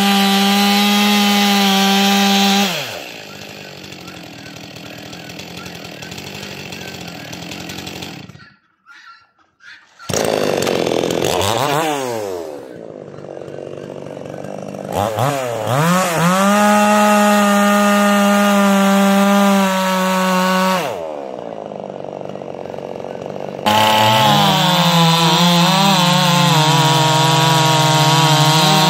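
Two-stroke chainsaw engine revved to full throttle and let back down to idle, twice, with a brief silent gap between runs. Near the end it runs steadily at a lower, wavering pitch.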